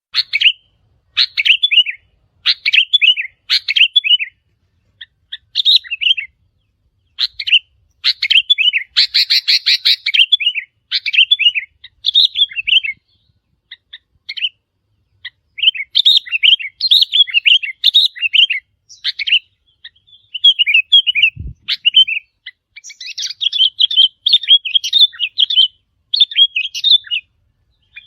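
Sooty-headed bulbul song: short bubbly, warbled phrases repeated over and over with brief pauses, including a denser chattering stretch about a third of the way in.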